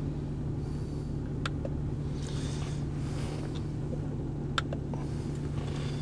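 2004 Mercury Sable's 3.0-litre DOHC V6 idling steadily, heard from inside the car, with a couple of faint clicks.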